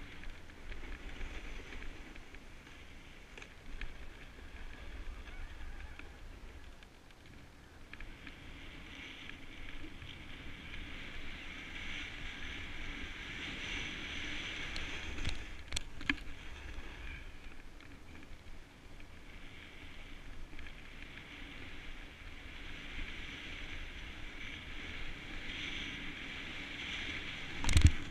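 Snowboard sliding over packed snow: a steady scraping hiss that rises and falls, with wind rumbling on the action-camera microphone. A few clicks, and a sharp knock near the end.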